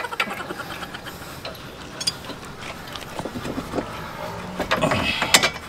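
Scattered light metallic clicks and knocks of hand-fitted car suspension hardware being worked at the front steering knuckle and strut, with a quick cluster of clicks at the start and single ones after.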